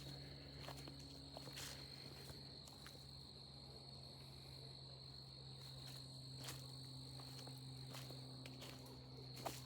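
Faint, slow footsteps on a wooded trail, with a few scattered crunches and twig snaps underfoot, under a steady high-pitched insect drone.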